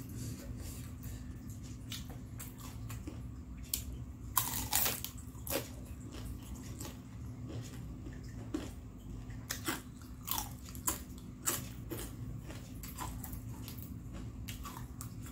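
Close-up crunching bites and chewing of crispy battered fried tempeh (tempe goreng), heard as separate sharp crunches, with the loudest cluster about four to five seconds in.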